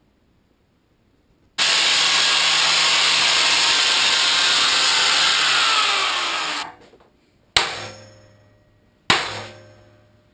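Angle grinder with an abrasive disc working over a welded steel letter for about five seconds, then winding down as it is switched off. After it come two sharp, ringing metal clangs about a second and a half apart.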